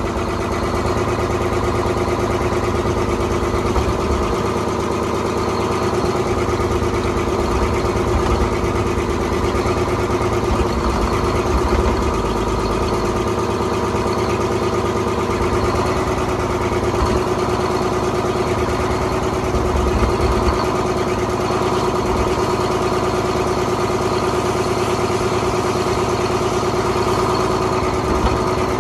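Detroit Diesel two-stroke diesel engine idling steadily, running after its stuck injectors and fuel rack were freed.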